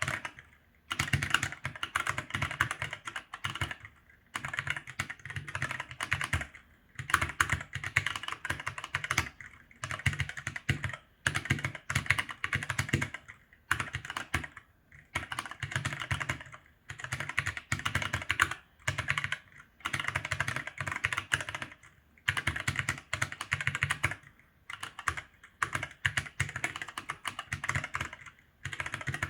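Typing on an ASUS ROG Falchion NX mechanical keyboard with ROG NX Red linear switches: rapid runs of keystroke clacks in bursts of a second or two, broken by short pauses.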